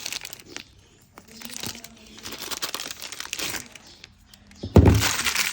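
Plastic packaging crinkling and rustling as it is handled, with scattered crackles, and a sudden loud thump about five seconds in.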